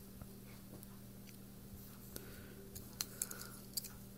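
Faint, scattered small clicks of an out-the-front automatic knife being handled, over a low steady hum.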